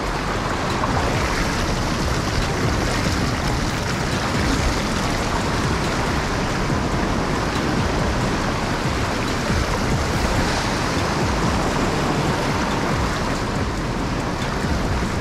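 Sea waves surging and rushing through a channel among shore rocks: a steady wash of water, the surf coming in fast, wave after wave.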